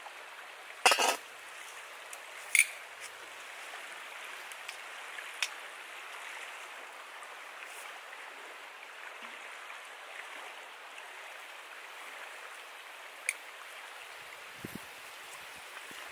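Steady rushing of a stream, with sharp metal clinks from a Weber Smoky Joe kettle grill's lid and steel tongs: a loud one about a second in, another a moment later, then a few lighter clicks as the tongs turn food on the grate.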